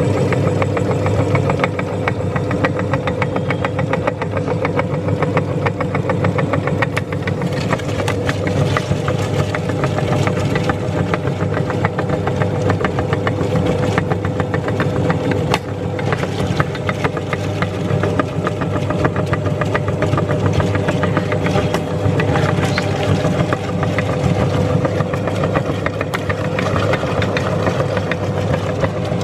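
Meat grinder running steadily, a constant motor hum with a dense, rapid crackle over it.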